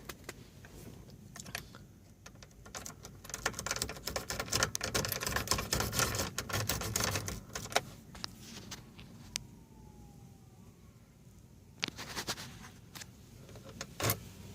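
Metal keys jangling and clicking as they are handled, a busy stretch of rattling that thins out to a few single clicks toward the end.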